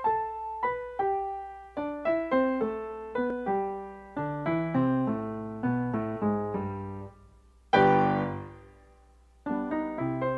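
Solo piano playing a ragtime tune in quick, bouncing notes. About seven seconds in it stops briefly, then lands one loud chord that rings out, and after a second's pause the playing starts again.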